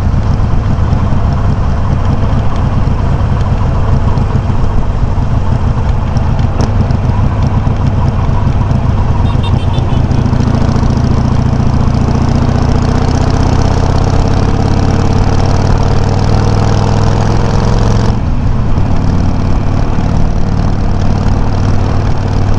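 Harley-Davidson Sportster 883's air-cooled V-twin running through Customer slip-on mufflers with low baffles, picked up by a microphone on the bike while riding. The exhaust note climbs in pitch as the bike speeds up, then drops suddenly about eighteen seconds in, as at a gear change or throttle lift, and runs on steadily.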